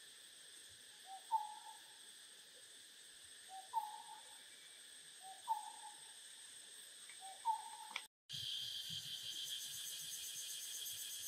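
A bird's short two-note hooting call, given four times about two seconds apart, over a steady high drone of insects. The sound cuts out briefly near the end, and then a louder, pulsing insect chorus takes over.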